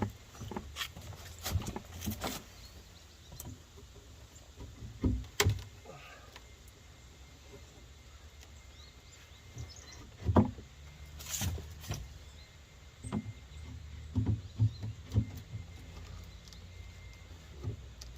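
Irregular knocks and thumps from work on old wooden deck boards being pried loose, with louder strikes about five and ten seconds in.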